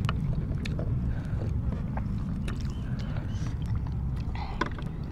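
Eating sounds: chewing and lip smacking, with scattered light clicks of spoons against ceramic bowls, over a steady low rumble.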